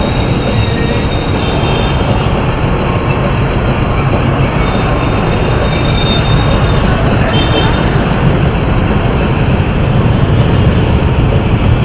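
Steady, loud rushing wind and road noise from riding a fat bike, with faint high squealing tones over it.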